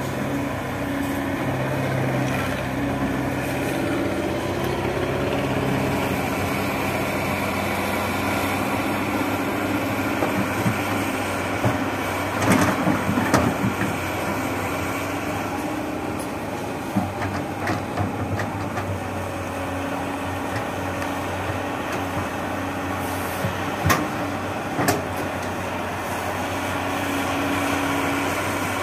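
Sany SY215C crawler excavator's diesel engine running under hydraulic load while it digs and swings a bucket of wet clay, its pitch rising and falling as it works. Short knocks and clunks come at times, the loudest cluster about halfway through.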